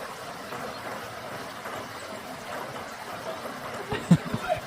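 Steady rush of stream water flowing over rocks, with a few dull thumps about four seconds in.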